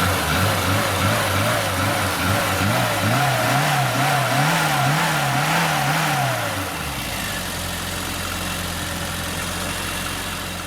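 Car engine being blipped, its pitch rising and falling about twice a second, then settling to a steady idle about two-thirds of the way in.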